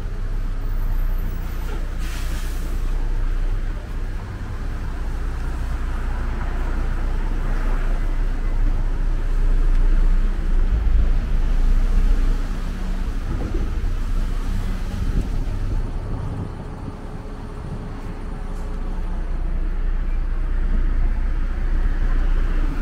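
City street traffic on wet road: cars and engines going by over a steady low rumble, swelling louder about ten to twelve seconds in.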